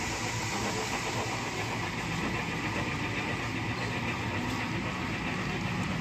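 HO-scale model freight train running, its cars rolling along the track with a steady, even rumble.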